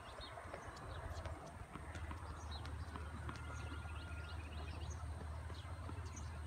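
Outdoor ambience: a steady low rumble, with faint scattered clicks and a few short high chirps over it.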